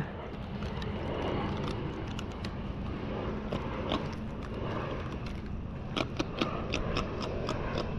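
Light clicks and scrapes of handling over a steady background hiss, with a short cluster of clicks about six seconds in.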